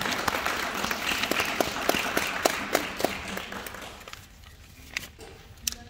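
Audience applauding, with a few sharp single claps standing out; the applause dies away about four seconds in.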